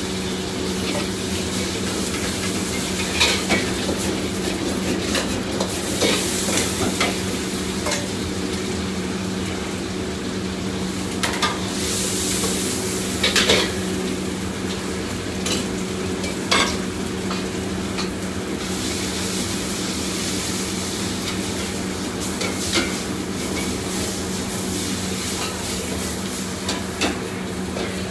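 Food sizzling in a wok while a metal ladle stirs and scrapes it, with scattered sharp clanks of the ladle against the wok. A steady hum runs underneath.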